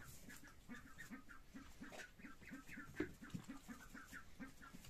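Faint, quick run of short soft clucking calls from poultry, about four to five a second, with a faint knock about three seconds in.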